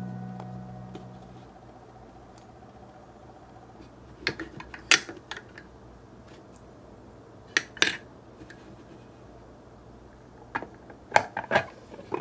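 A piano chord fades out near the start. Then small hard clicks and taps come in three clusters, about four, eight and eleven seconds in: miniature plastic toy pieces being handled and set down.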